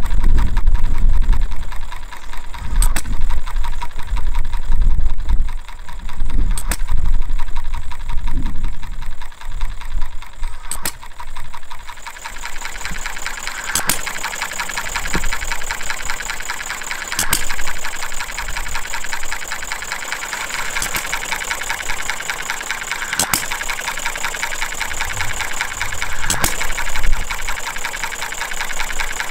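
Farm Boy hit-and-miss model engine running, firing with a sharp crack every three to four seconds and coasting between firings with a fast, even mechanical clatter from its valve gear and side shaft.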